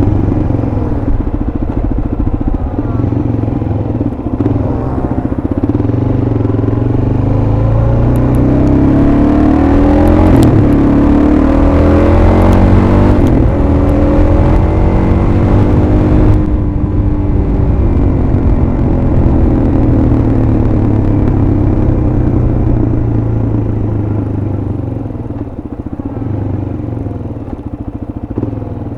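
Suzuki DR-Z400SM's single-cylinder four-stroke engine running on the move, its note rising and falling repeatedly with the throttle. It is busiest through the middle and eases off and gets quieter near the end.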